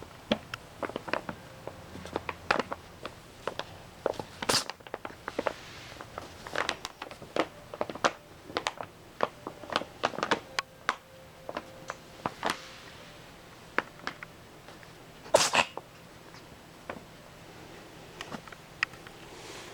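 Paper bag crinkling and crackling as cats play in and around it, in irregular scattered crackles, with two louder rustles about four and a half and fifteen seconds in.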